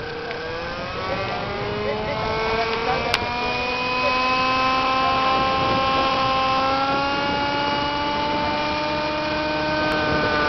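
Glow (nitro) engine of a Thunder Tiger Raptor radio-controlled helicopter running on the ground, its whine rising in pitch over the first few seconds as the rotor spools up for takeoff, then holding steady. A sharp click about three seconds in.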